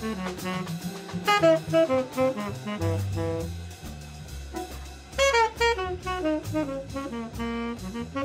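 Tenor saxophone playing jazz phrases over bass and drum kit, with a short break in the horn line a little past the middle before the next phrase starts.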